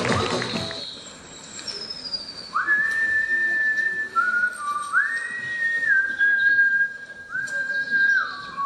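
A slow whistled tune: long held single notes, several of them reached by a sliding rise in pitch. It follows a piece of music that cuts off about half a second in.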